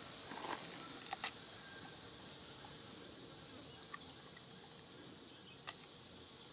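Long-tailed macaque biting and chewing a piece of crisp green fruit: a few short sharp crunches about a second in and again near the end, over a faint steady hiss with a thin high tone.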